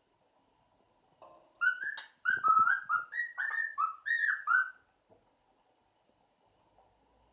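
Young cockatiel, about three months old, whistling a quick string of short notes that each rise and fall, lasting about three and a half seconds and starting about a second in.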